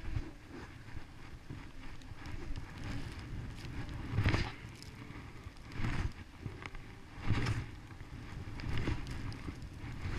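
Skis sliding over groomed snow, with a louder swish about every second and a half from about four seconds in.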